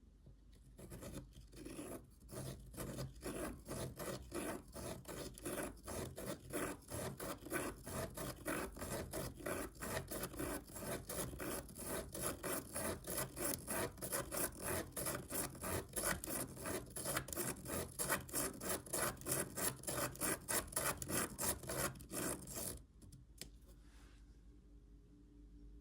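Pen rubbing and scratching on paper as it is driven round and round in a spirograph wheel, in an even repeating rhythm of about two to three strokes a second. It starts about a second in and stops abruptly near the end.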